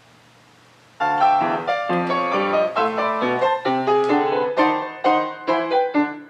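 A second of quiet room tone, then piano music begins: quick successive notes and chords, several a second.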